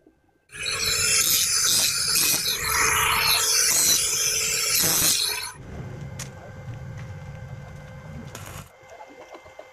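Handheld angle grinder grinding on a steel tube frame, most likely dressing a fresh weld: a loud, harsh hiss for about five seconds that stops abruptly, leaving a much quieter low rumble with a few light clicks.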